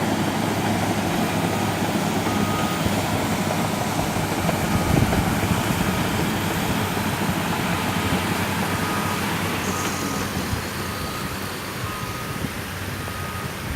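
Caterpillar D6H LGP track bulldozer's diesel engine running steadily under work, with a reversing alarm beeping about once a second, clearest in the second half.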